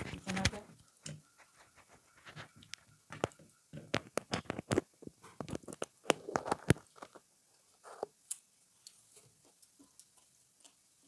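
Close-up mouth sounds of eating pizza by hand: wet chewing and lip-smacking clicks, thickest between about four and seven seconds in, then thinning out.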